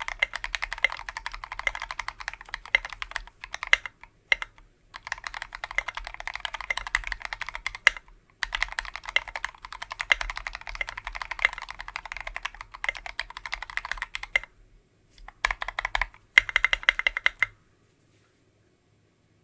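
Fast typing on a KBDfans TOFU 60% keyboard with a brass plate, lubed Tealios V2 linear switches and SA keycaps. The typing comes in runs of rapid key strokes broken by short pauses, and stops about three-quarters of the way through.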